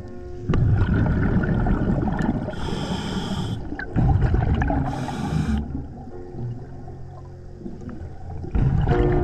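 Scuba diver breathing through a regulator underwater: bursts of exhaled bubbles rumbling and gurgling, alternating with short hissing inhalations.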